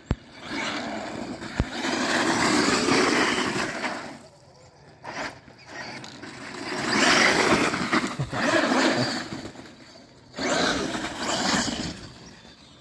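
Radio-controlled monster truck driving hard through snow and slush, its motor and tyres loud in three long bursts with short quieter pauses between them.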